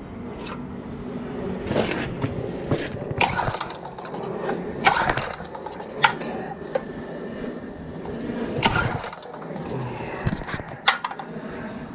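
Several pulls on the recoil starter rope of a Craftsman pressure washer's small engine, each a short rasp, mixed with sharp clicks and knocks; the engine turns over but does not fire.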